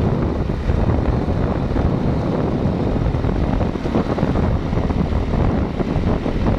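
Steady wind buffeting the microphone, mixed with the low rumble of a vehicle travelling along a road.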